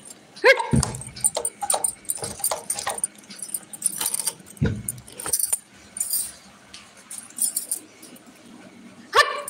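Handling noise from a phone: irregular rustling and clicks, with a few short, high, bending cries, one about half a second in and one near the end.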